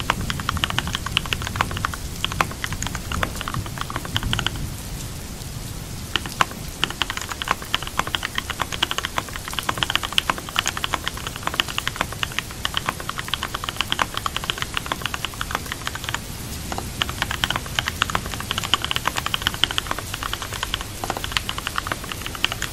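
Computer keyboard typing in quick runs of keystrokes, with a brief pause about five seconds in, over steady rain.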